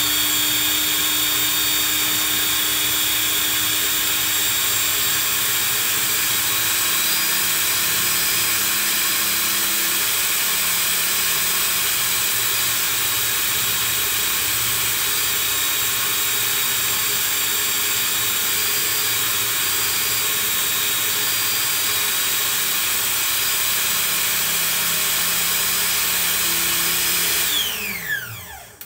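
Food processor motor running steadily at speed with a high whine, mixing melted butter into blitzed digestive biscuit crumbs. Near the end it winds down, the whine falling in pitch as it slows.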